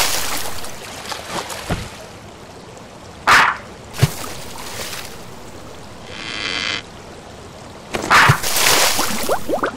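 Animated magic sound effects: a quick whoosh about three seconds in followed by a sharp click, a short shimmering tone, then another whoosh near the end that runs into a string of quick rising chirps.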